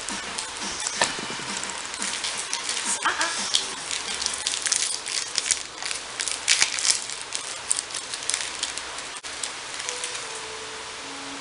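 Crinkling and rustling of a plastic treat wrapper, in many quick uneven crackles, as treats are pulled out and handed to dogs.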